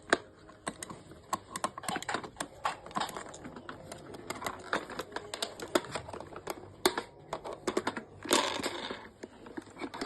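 Rapid, irregular plastic clicks, taps and rattles of AA batteries being pushed into a toy car's battery compartment, with a short scrape or rustle about eight seconds in.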